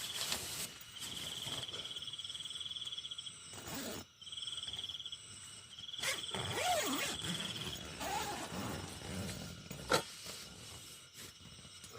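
A night insect trilling high and fast in repeated bursts of about two seconds each, with short gaps between. A sharp click comes about ten seconds in, and a few brief gliding sounds are heard a little after the midpoint.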